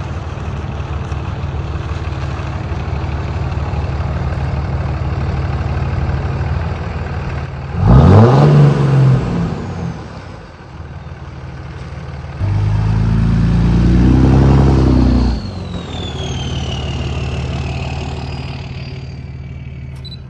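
Third-generation Dodge Ram's 5.9 Cummins turbo-diesel running, revved sharply twice, about eight and twelve seconds in, the second time held for about three seconds, then dropping back to idle with a high whistle falling in pitch as it dies away.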